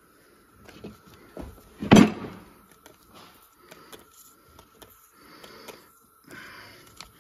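A plastic trigger spray bottle spritzing leak-test fluid around a freshly fitted injector sleeve in a cylinder head, in two short hissing squirts near the end, to check that the sleeve seals. A single sharp knock comes about two seconds in.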